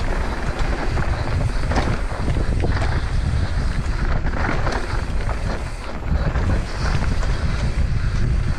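Mountain bike descending a dirt trail at speed: wind buffeting the camera microphone over the rumble of knobby tyres, with scattered knocks and rattles from the bike over bumps.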